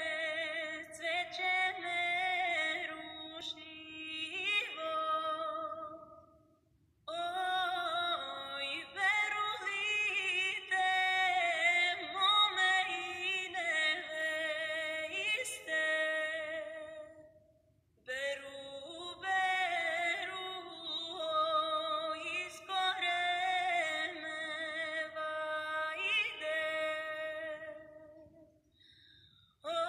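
A woman's solo voice singing a Serbian folk-style song in long, ornamented phrases with brief pauses between them. It is heard played back through a TV's speakers, so it sounds thin.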